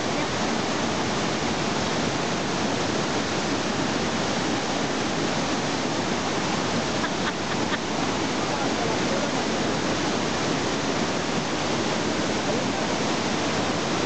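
Small rocky waterfall pouring steadily into a stream, a continuous loud rush of falling water.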